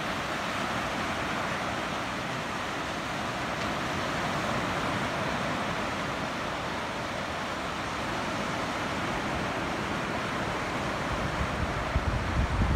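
Sea waves washing steadily onto the shore of a small cove. Wind begins buffeting the microphone about eleven seconds in.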